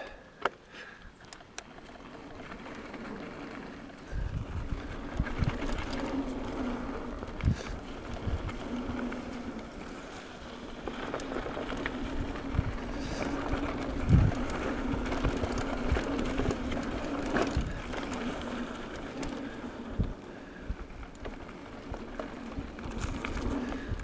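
Mountain bike rolling along a dirt trail: a steady tyre hum, with knocks and rattles as it goes over bumps. Wind buffets the microphone from about four seconds in.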